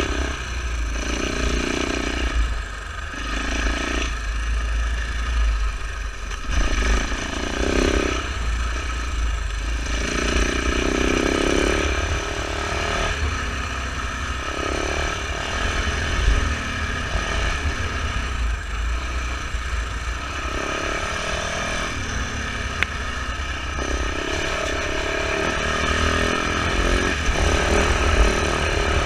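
Husaberg FE450 enduro motorcycle's single-cylinder four-stroke engine, revving up and dropping back again and again every one to three seconds as the throttle is worked over rough ground. A constant low rumble of wind on the microphone runs under it.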